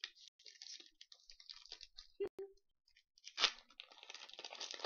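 Foil wrapper of a Pokémon XY booster pack crinkling and tearing as it is opened by hand. Two sharp clicks come a little after two seconds in, and the loudest crackle about three and a half seconds in.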